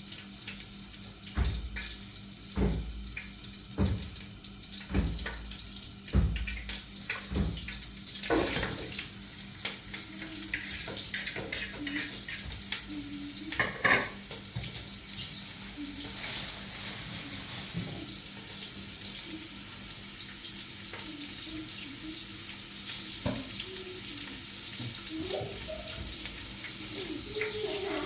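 A string of six dull thumps about a second apart, then a steady rush of running water.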